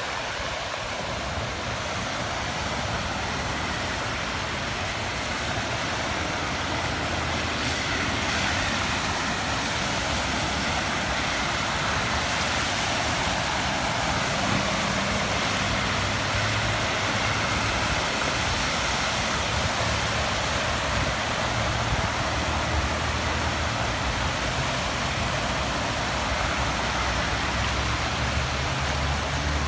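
Floodwater rushing steadily across a road, with cars driving through the standing water and throwing up spray. The low hum of passing car engines comes in about halfway through and again near the end.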